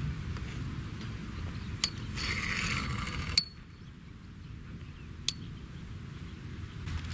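Fishing reel mechanism: a click, about a second of whirring, then a sharp metallic snap, the loudest sound, and one more click a couple of seconds later.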